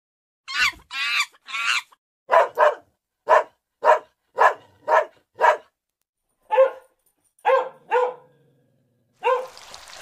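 A dog barking repeatedly: about fourteen short barks, a few early on, then a steady run of about two a second, then a handful more spaced out with pauses between them.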